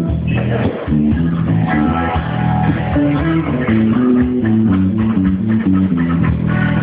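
Guitar and bass guitar playing a funk groove together, the bass line moving in short notes beneath plucked guitar.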